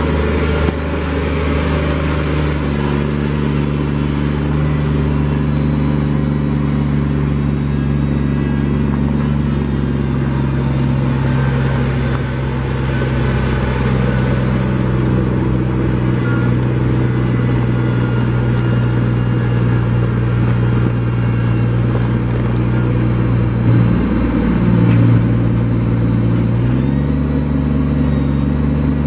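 Kubota BX25D's three-cylinder diesel engine running steadily, with the engine speed shifting a few times: it drops and wavers briefly, then picks up again near the end.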